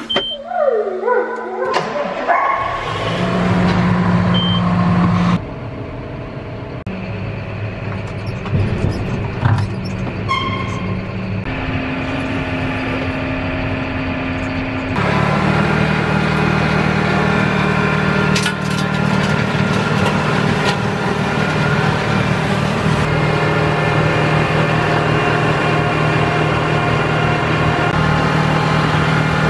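Tractor engine running steadily while it drives a snowblower clearing snow, in several spliced clips, with abrupt jumps in pitch and level at each cut. The longest stretch, the second half, is one even engine drone.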